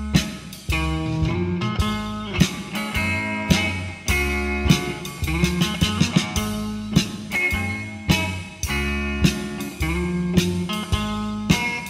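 Instrumental blues band recording: guitar playing the melody over electric bass and drums, with a steady beat and no vocals.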